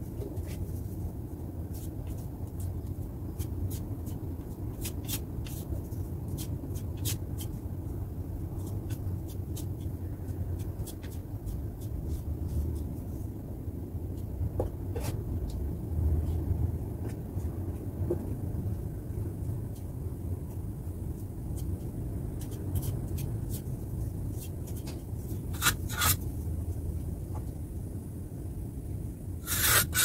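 Metal putty knife scraping and tapping as wall putty is spread on a wall and worked off a metal plate, in many short strokes over a steady low rumble. A few louder short bursts come near the end.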